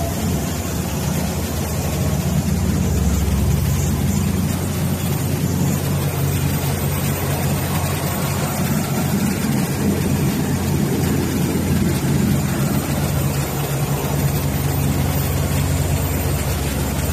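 Cummins diesel engine of a 260 hp portable air compressor running steadily on a test run.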